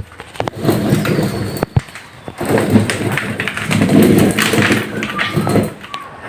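Hand-turned stone corn grinder grinding corn kernels: a gritty grinding rumble of stone on stone that comes in surges, with sharp knocks in between.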